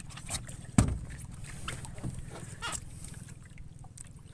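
Knocks and clicks of handling gear in a small wooden fishing boat, with one sharp, loud thump about a second in, over a low steady rumble.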